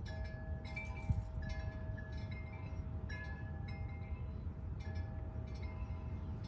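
Wind chimes ringing, struck irregularly about once or twice a second, several tones sounding together and dying away slowly, over a steady low rumble.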